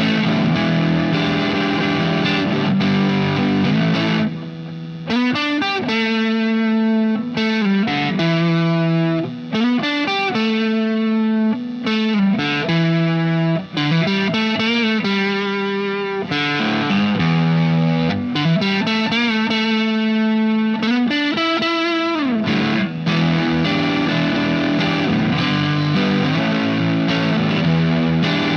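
Cherry burst Stratocaster-style partscaster electric guitar played with distortion through an amp simulation on a computer. Distorted chords open, then single-note lead lines with string bends run from about five seconds in, and chords return near the end.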